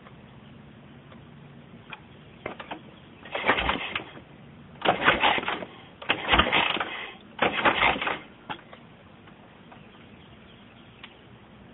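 Harley-Davidson Shovelhead being kick-started. Four kicks in a row, each a short clattering burst under a second long as the engine turns over, and it does not catch.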